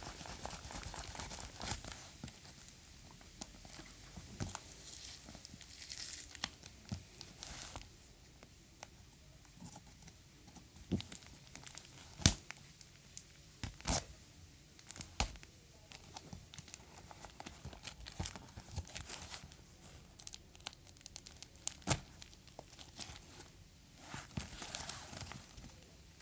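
Keyboard packaging being handled and opened: plastic wrapping and cardboard crinkling and tearing, with scattered sharp knocks of the box being handled, the loudest two near the middle.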